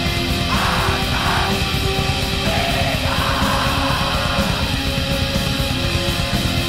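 Black metal music: distorted electric guitars and drums under held keyboard-like tones, with rasping shrieked vocals in two stretches, about half a second in and again from about two and a half to four and a half seconds.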